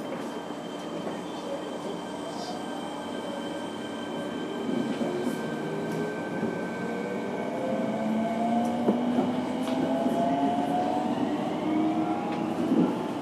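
Inside a Fukuoka City Subway 1000 series car, heard from on board: the VVVF inverter and traction motors whine in several tones that start rising steadily in pitch about four seconds in as the train accelerates. Wheel-on-rail rumble runs underneath.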